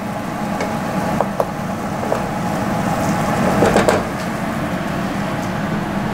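Wooden spoon stirring browning ground beef and sausage in a metal pot: a few scrapes and knocks against the pot, over a steady low hum.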